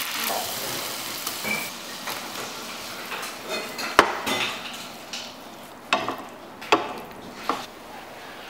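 Herb butter sizzling in a hot frying pan as liquid is poured in, the sizzle dying down over the first couple of seconds. Then food is stirred in the pan, with several sharp knocks of utensil on pan.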